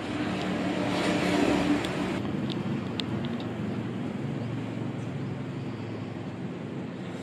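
An engine running, swelling to its loudest about a second and a half in and then easing to a steady level, with a few light clicks between two and three seconds in.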